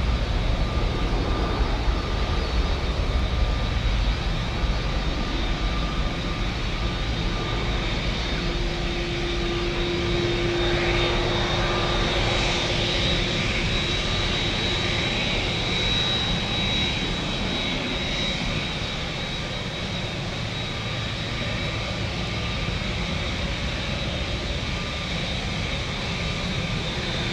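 Jet airliner's engines running, a continuous rush with a steady high whine. Gusty wind rumbles on the microphone in the first few seconds.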